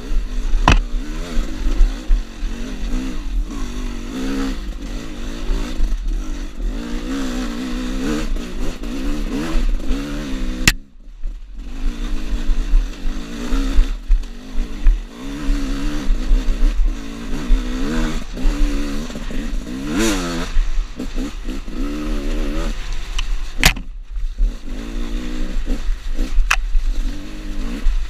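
Gas Gas EC 300 two-stroke enduro motorcycle engine being ridden, its revs rising and falling constantly with the throttle, with some clatter. The sound breaks off suddenly for a moment about a third of the way in, then carries on.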